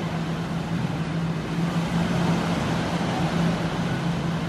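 Beach ambience: a steady rush of surf and wind with a steady low engine hum running beneath it.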